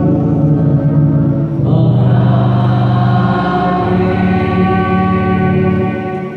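Sung church music: voices with trumpet, electronic keyboard and violins hold long chords. The chord changes about one and a half seconds in, and the music fades near the end.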